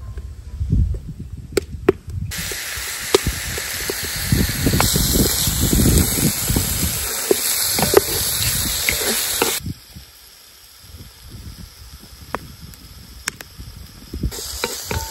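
Raw meat pieces sizzling in hot oil in a cast iron pan over a Canadian candle log fire, with scattered crackles and clicks. The sizzle starts abruptly about two seconds in, drops away suddenly near ten seconds, and comes back near the end.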